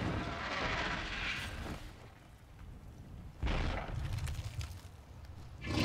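Dragon sound effects from a television soundtrack: deep, sudden rushing bursts of breath or flame, one at the start, another about three and a half seconds in, and a third just before the end.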